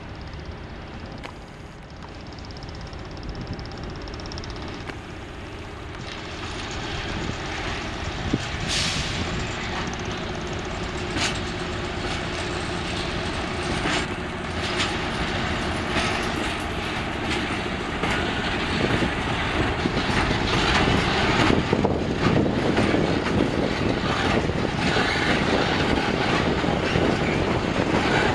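PKP Cargo SM42 diesel shunting locomotive hauling a heavy multi-axle special wagon slowly past, its engine hum and rumble growing louder as it approaches. From about eight seconds in, irregular knocks and clatter of the wagon wheels over the rail joints come in, loudest near the end as the many-axled wagon rolls close by.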